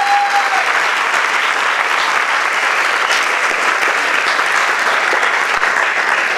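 An audience in a hall applauding steadily, dying away at the very end.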